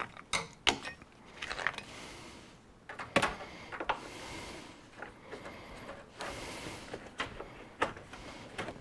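Hands working plastic headlight parts and wiring in a pickup's engine bay: scattered sharp plastic clicks and knocks, with a few short stretches of soft rubbing noise between them.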